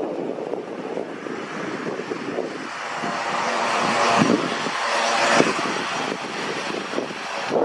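Cessna Caravan single-engine turboprop taxiing past, its engine and propeller running with a steady buzzing drone. It grows louder as the aircraft comes closest, about halfway through, then eases slightly.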